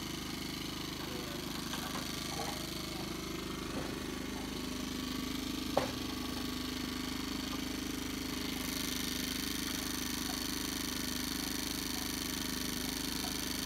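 Champion portable generator running steadily, with one sharp knock about six seconds in.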